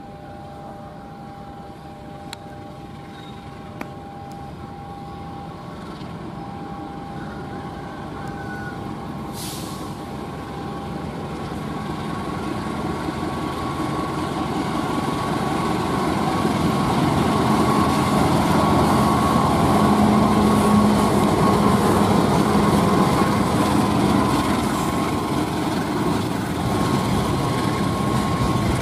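A train approaching and passing close by. Its running noise grows steadily louder for about eighteen seconds, then holds at its loudest.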